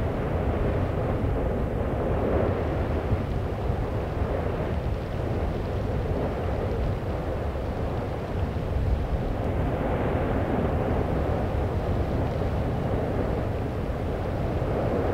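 Steady low rumble of an erupting volcano, an even roar without distinct bangs or pitched tones.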